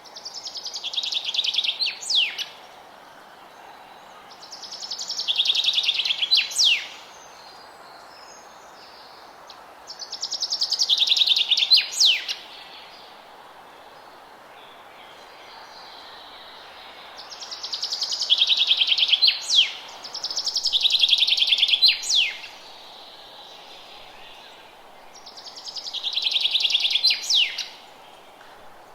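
A songbird singing the same song six times, one every few seconds: each a fast trill about two seconds long that builds in loudness and ends in a couple of sharp high notes. A steady low hiss of background noise runs beneath.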